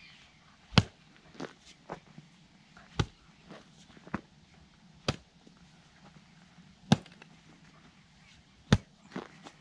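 A long-handled hoe chopping into rain-softened earth: five heavy strikes about two seconds apart, with smaller knocks and clods falling between them.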